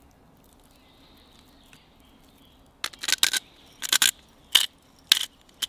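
Hand pepper mill being twisted over the pot: a run of short dry grinding rasps, five or so twists about half a second apart, starting about three seconds in.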